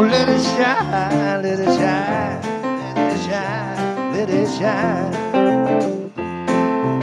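Live band playing a slow country-style song on keyboard, drum kit and guitar, with a lead melody line that wavers and bends in pitch through the middle.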